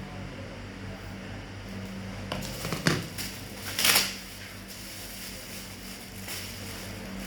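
Packaging being handled during an unboxing: some rummaging, a sharp knock about three seconds in, then a loud brief crinkle of wrapping about a second later, over a steady low hum.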